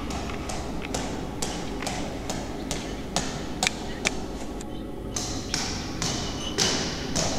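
A small ball bouncing down marble stairs: sharp taps about two a second, each echoing in the stairwell, the ringing growing longer near the end.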